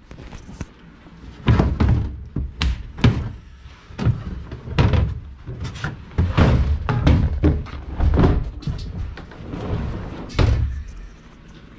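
Irregular hollow thumps and knocks, a dozen or more in quick succession, from a large plastic RV water tank being handled inside an aluminum boat hull.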